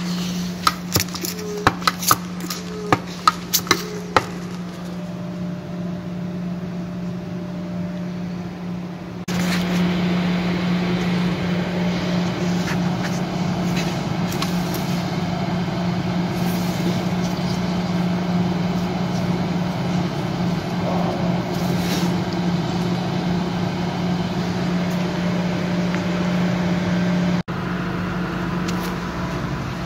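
A steady mechanical hum with one constant low tone. Several sharp clicks and knocks come in the first four seconds, and the hum grows louder about nine seconds in.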